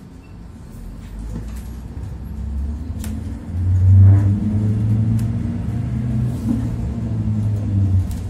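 Iveco Dekstra LF38 CNG minibus heard from inside the passenger area: a deep engine rumble that builds as the bus pulls away, turning loud about three and a half seconds in and staying steady as it gets under way.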